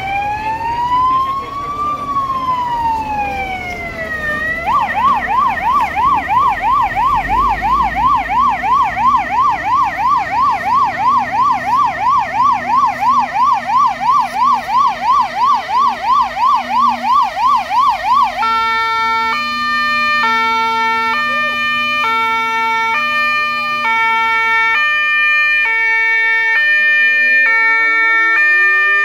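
Fire truck electronic siren changing modes. It starts as a slow rising-and-falling wail, switches about five seconds in to a fast yelp of about three warbles a second, and in the second half becomes a pattern of steady tones jumping back and forth. Near the end a second siren starts winding up, rising in pitch.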